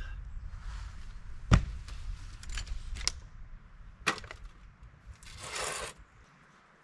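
Several sharp knocks, two of them loud, among smaller clicks, over a low rumble, with a short scraping rustle near the end; it sounds like hard objects being knocked about and handled.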